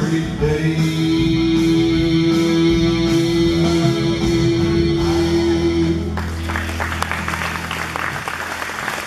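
A man's singing voice holds the long final note of a gospel song over instrumental accompaniment, with the music ending about six seconds in. Audience applause follows.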